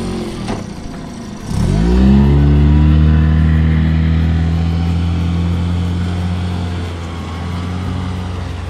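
Mercury outboard motor on an inflatable dinghy idling, then opened up about a second and a half in with a rising pitch, and running steadily at speed as the dinghy pulls away, slowly fading.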